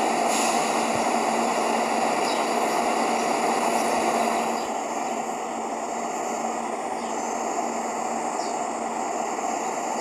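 A steady whooshing noise with a low, even hum, easing slightly about halfway through.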